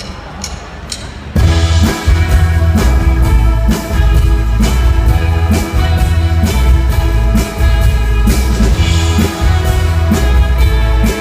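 Steady high clicks about three a second count in a live rock band, which comes in loud about a second and a half in with heavy bass and a regular drum beat: the start of a song.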